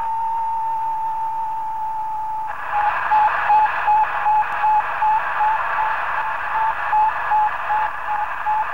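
Electronic radio-signal sound effect: a steady high tone, then about two and a half seconds in, a burst of radio static with the tone beeping rapidly, about three beeps a second, like a satellite transmission.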